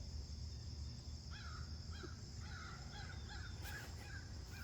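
A bird calling in a quick series of short, repeated notes, about three a second, starting about a second in, with a steady high insect drone underneath.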